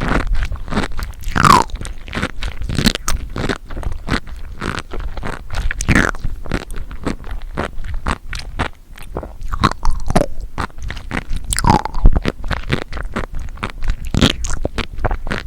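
Close-miked chewing of crunchy seafood: a dense, uneven run of crisp crunches and pops, with a few short wetter mouth sounds.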